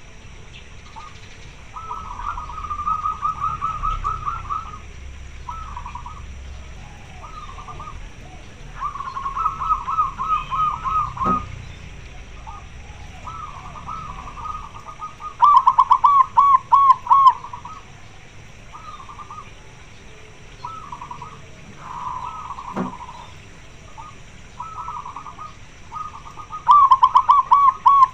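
Zebra dove (perkutut) cooing in quick staccato phrases repeated every few seconds, the loudest phrases about halfway through and again near the end. It is a female, which the uploader says is calling for a male to mate.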